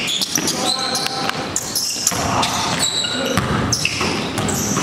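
Live basketball play in a gym: the ball bouncing on the court, sneakers squeaking on the floor and players' shouts, all echoing in the hall.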